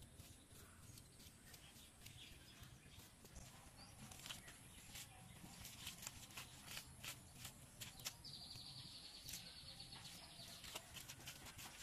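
Faint scraping and irregular light clicks of a hand tool being worked through wet mud, soil and grass roots while digging. About eight seconds in, a high trill runs for about two seconds.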